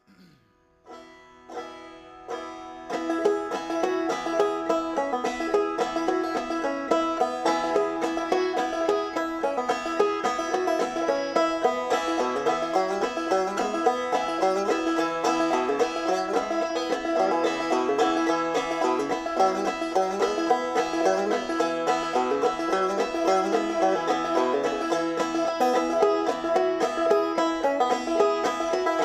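Instrumental music of fast, rapidly repeated plucked-string notes, starting softly with a few notes and filling out about three seconds in.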